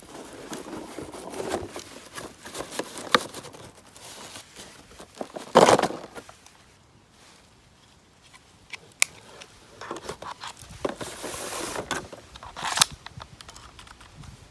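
Handling noises: rustling, crinkling and scraping, with a few sharp clicks spread through and one louder rush of noise about midway.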